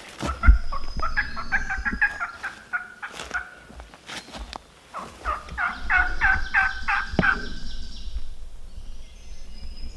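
Wild turkey calling: two runs of quick, repeated yelping notes, the second run louder, with a thump about half a second in.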